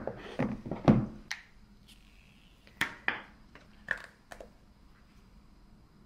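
Handling of a smartphone and its cardboard box, with a few knocks and rustles, then several short sharp clicks as the phone is pressed into a clear plastic case.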